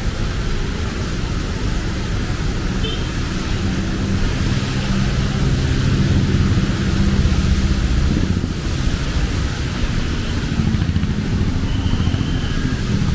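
Street traffic: engines of passing cars and motorcycles, rising to its loudest around the middle, over a steady hiss.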